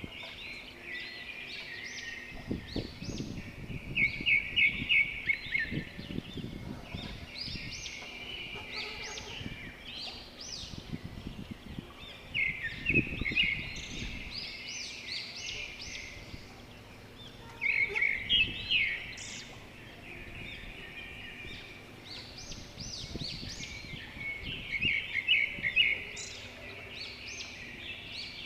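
Birds chirping and singing in high, repeated phrases, loudest in four short bursts of rapid chirps spread through the stretch, over an uneven low background rumble.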